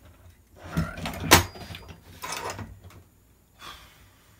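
Parts being handled on a workbench while an airsoft rifle's outer barrel assembly is picked up: a sharp knock about a second in, with softer knocks and rustling around it.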